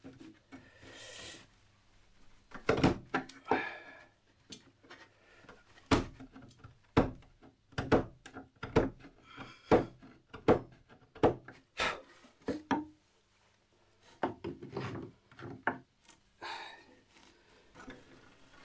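Wood chisel cutting a groove into a timber upright: a series of sharp knocks, roughly one a second, with short scraping strokes between as wood is pared out of the groove.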